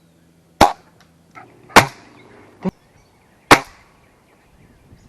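A run of sharp pellet-gun shots, four loud cracks about a second apart with a fainter crack between them.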